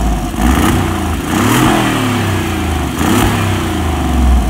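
Mercedes G500 4x4²'s 4.0-litre twin-turbo V8 revving through an Agency Power valvetronic exhaust with its valves closed, the revs rising and falling twice. The closed-valve note is thin, likened to a Yamaha TT-R125 dirt bike.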